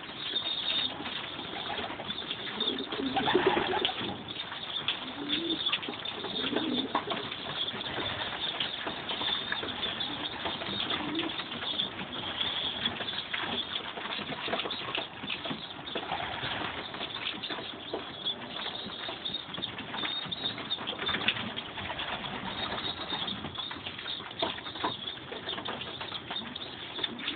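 Pigeons in a loft cooing, with constant scuffling and fluttering as the breeders feed their young. The cooing is strongest a few seconds in.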